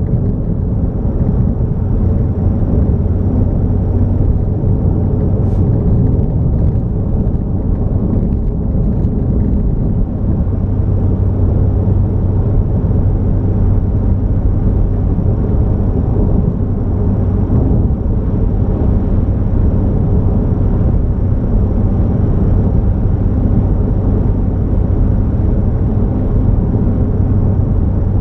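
Car driving along a highway: a steady rumble of engine and road noise with a constant low hum and a few faint clicks.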